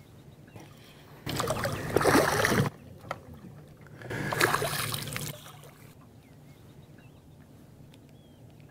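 Electric trolling motor on the boat's bow running in two short spells of about a second and a half each, a whooshing noise with a low steady hum.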